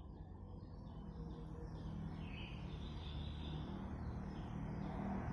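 Steady background noise with a low hum and scattered faint high chirps of birds.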